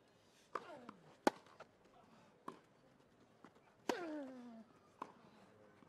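Tennis rally on a grass court: sharp knocks of the ball being struck, roughly every second and a bit. A player gives a short grunt that falls in pitch on two of the shots, about half a second in and near four seconds.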